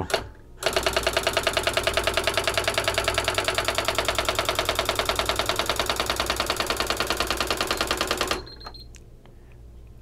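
Brother AX-22 electronic daisy-wheel typewriter printing the same character over and over in rapid, even strikes, about nine a second, as it types across the line. About eight seconds in the strikes stop abruptly where the carriage reaches the newly set right margin.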